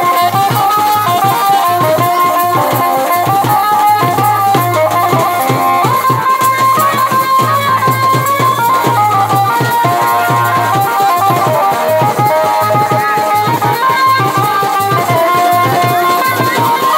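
Live folk band music: double-headed barrel drums beaten with a stick and hand in a fast, even beat, under a stepping melody line.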